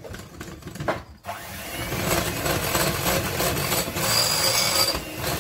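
Electric hand mixer switched on about a second in, then running steadily with its beaters whisking runny cake batter in a glass bowl.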